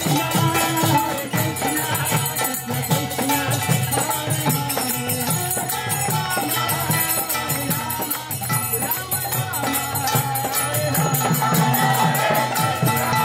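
Devotional kirtan of group chanting with jingling hand cymbals keeping a steady beat.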